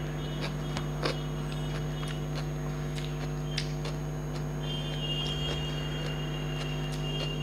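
Eating by hand from a plate: fingers mixing rice and curry, with chewing and small wet mouth clicks, over a steady low hum. A thin, steady high tone comes in about five seconds in.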